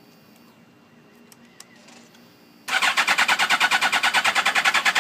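Suzuki GSX-R1000's starter motor cranking its inline-four engine for about two and a half seconds, starting about halfway in, with a fast even pulsing; the engine does not fire. It cranks without starting despite good spark, which the owner thinks may be a fuel pressure problem.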